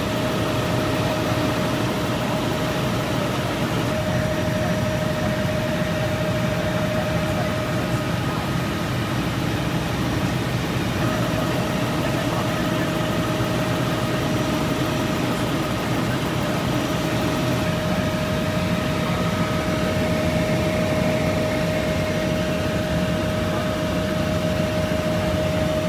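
Helicopter cabin noise in flight: a steady drone of engine and rotor with a steady whine over it that fades briefly about a third of the way through.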